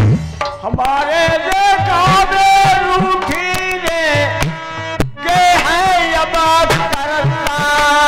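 Dhola folk singing: a man's voice holding long, wavering notes over hand-drum accompaniment, with a brief break about five seconds in.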